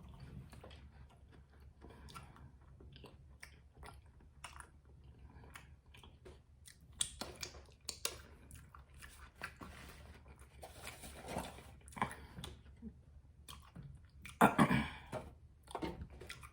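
Close-miked chewing of a stuffed quesadilla: wet mouth sounds, lip smacks and crunches in an irregular run, with a louder burst near the end.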